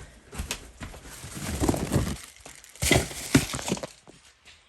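Rummaging through a container of foam Crocs shoes: rustling and crinkling with irregular knocks and thuds as the shoes are handled, loudest about three seconds in, then dying down near the end.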